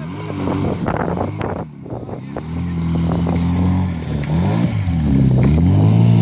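Rally car engine running and revving as the car pulls away across rough, grassy ground; the engine pitch climbs and drops several times in the second half.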